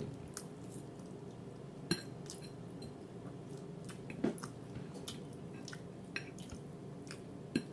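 Quiet eating sounds: scattered soft clicks and smacks of chewing, with a few sharper clicks about two, four and seven and a half seconds in.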